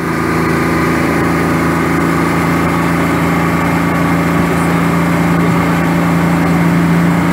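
A motorboat's engine running at a steady pitch, with the rush of water from the wake underneath.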